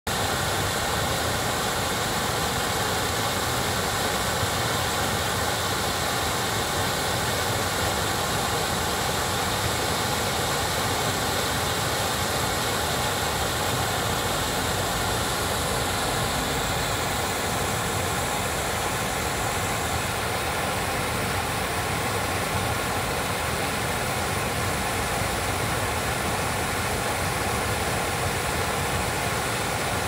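Water spilling over a low concrete weir and churning into white water below, a steady rushing noise.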